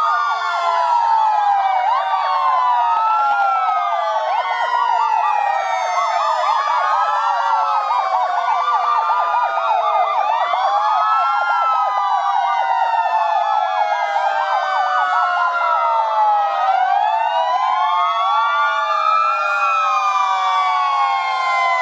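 Many fire-engine sirens wailing together. Their tones slide up and down out of step with one another in a continuous overlapping chorus.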